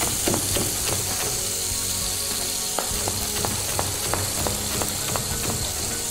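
Cherry tomatoes frying and sizzling steadily in olive oil in a frying pan, with a chef's knife chopping parsley on a cutting board in irregular sharp taps.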